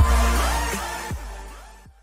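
Electronic intro music with heavy bass fading out steadily to silence, with two bass swoops falling in pitch along the way.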